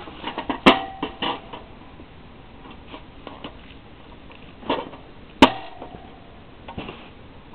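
Wire hamster-cage top knocking and clicking against its plastic base as it is fitted: a handful of sharp clicks and rattles, the loudest a sharp snap about five seconds in.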